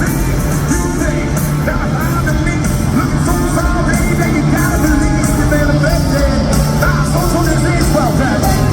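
Hard rock band playing live: a sung lead vocal over distorted electric guitars, bass and drums, loud and steady.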